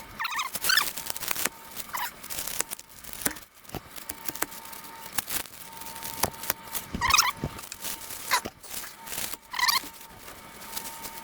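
Plastic wrapping being torn and crinkled off a new exhaust pipe, with crackles throughout and several short squeals as the wrap peels away.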